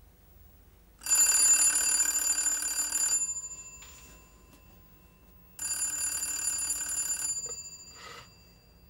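Telephone bell ringing twice, each ring about two seconds long with a bright metallic jangle that dies away.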